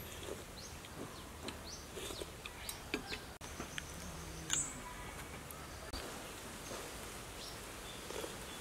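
Birds chirping in short scattered calls over steady outdoor background noise, with occasional light clinks and scrapes of metal spoons against ceramic soup bowls.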